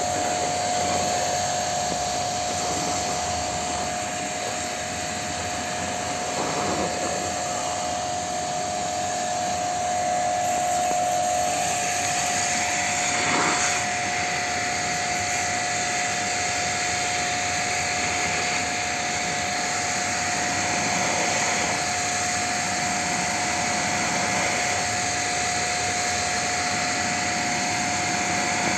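Electric pressure washer running steadily, its water jet hissing as it sprays onto an air conditioner's condenser coil fins, with one steady tone that holds at constant pitch.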